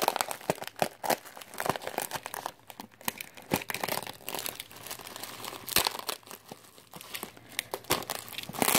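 Plastic bubble wrap crinkling and crackling as it is pulled at and slit open with a utility knife, in irregular sharp crackles, loudest near the end.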